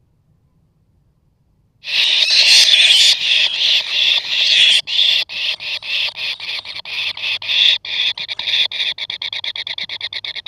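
Kingfisher nestlings giving harsh, rasping begging calls. The calls start abruptly about two seconds in and carry on loud and rapidly stuttering.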